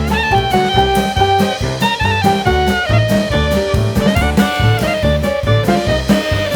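Instrumental background music: a held, sliding melody line over a steady bass and drum beat.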